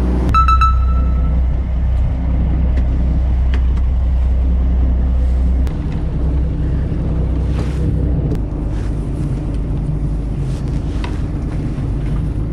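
Fishing boat's engine running steady at speed, a loud low drone with the rush of water and wind over it. A short bell-like chime rings right at the start. About six seconds in, the sound cuts to a quieter engine rumble with wind and a few light clicks.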